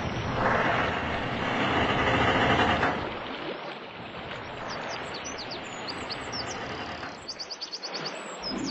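Birds chirping in quick series of short, high notes, most plainly near the end, over a steady noise that is loudest for the first three seconds and then drops.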